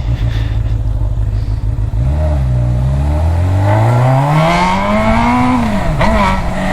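Motorcycle engine idling, then pulling away: its pitch rises steadily for about three seconds, falls away, and settles back to a steady run near the end.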